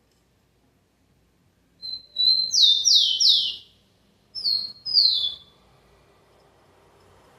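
Rufous-collared sparrow (tico-tico) singing: a short whistle, then three loud down-slurred whistles, a brief pause, and two more down-slurred whistles.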